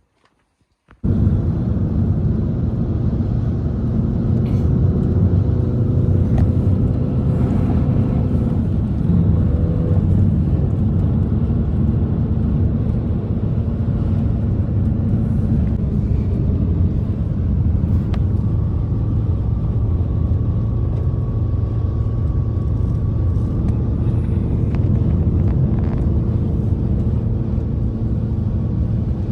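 Strong blizzard wind, a loud steady low rush with faint whistling tones, starting abruptly about a second in.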